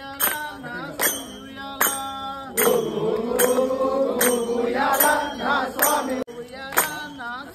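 Ayyappa devotional bhajan sung by male voices, over a steady beat of jingling hand percussion struck about once every 0.8 seconds.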